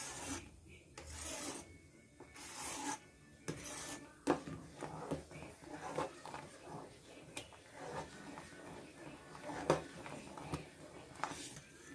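Steel ladle stirring thick, boiling rice kheer in a steel pot. It scrapes along the pot in strokes about once a second at first, then gives scattered light clicks and taps against the metal.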